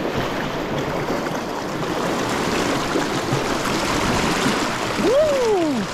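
Fast shallow stream rushing over rocks close to the microphone, a steady loud water noise. About five seconds in, a man lets out one drawn-out exclamation that rises and falls in pitch.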